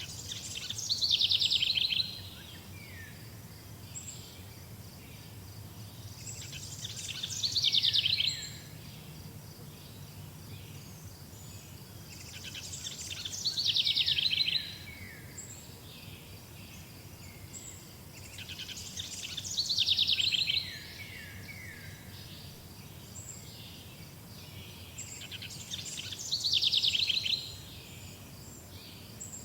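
A forest songbird repeating the same loud song five times, about every six seconds. Each song lasts about two seconds, grows louder and ends abruptly, over a faint steady high trill.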